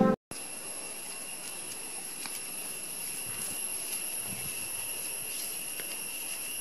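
Outdoor ambience: a steady high-pitched whine over a soft hiss, with a few faint light ticks.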